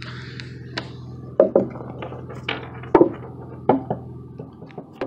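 Marble egg knocking and clacking against a concrete floor as a spotted skunk pushes it about: about eight sharp knocks at irregular intervals, the loudest in the middle, over a low steady hum.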